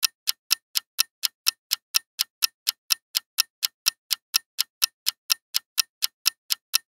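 Quiz countdown-timer sound effect: steady, sharp clock-like ticking at about four ticks a second while the answer timer runs down.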